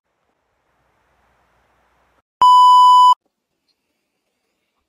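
Electronic test-tone beep at about 1 kHz, the kind played over TV colour bars, sounding once for under a second about two and a half seconds in.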